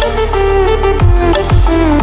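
Background music with a heavy electronic beat: deep bass kicks and a melody line that bends up and down in pitch.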